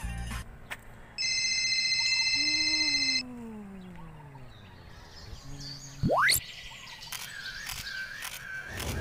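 A string of edited-in sound effects: a steady high beep for about two seconds, then a slow falling slide, a very fast rising whoosh about six seconds in, and from about seven seconds a repeating chirping pattern with clicks.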